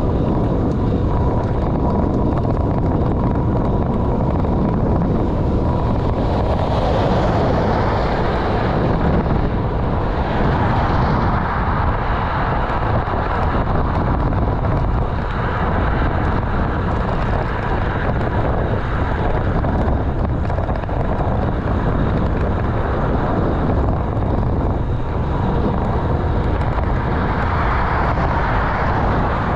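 Wind buffeting the microphone of a handlebar-mounted GoPro on a moving bicycle, with road and tyre noise: a steady, loud rumble, strongest in the bass, swelling a little twice.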